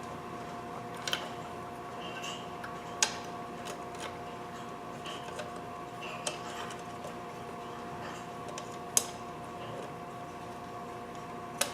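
A few light, sharp clicks and taps, spaced a few seconds apart, as thin mitered wooden glazing strips are pressed into place around a pane of glass in a door frame, over a steady hum.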